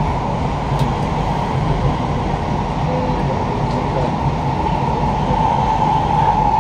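Kawasaki-CRRC Sifang C151B metro train heard from inside the car while running between stations: a steady rumble of wheels on rail with a high hum that grows louder near the end.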